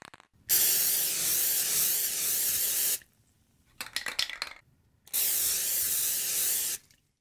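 Aerosol spray-paint can spraying in two long hisses, one of about two and a half seconds and one of under two seconds. Between them comes a short burst of rapid rattling, the can being shaken so its mixing ball rattles.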